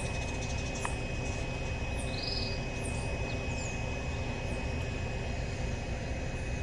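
Tropical rainforest insects: a steady high-pitched buzz with short, very high chirps repeating every half second or so, over a steady low rumble.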